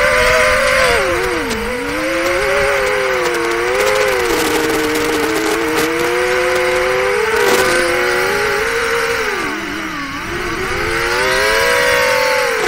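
Brushless motors of a 4-inch FPV quadcopter (1603 2800KV motors on 4S) whining in flight, several close tones rising and falling together with the throttle. The pitch drops sharply about one and a half seconds in and again near ten seconds, then climbs back.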